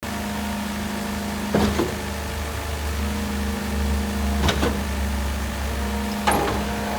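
Concrete pump with a mixer running, with a steady engine hum and a sharp clunk three times, each followed by a lighter knock: the pump changing stroke.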